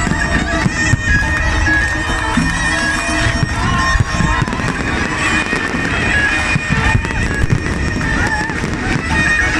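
Fireworks going off in quick succession, many bangs and crackles, with reedy wind-instrument music playing over them.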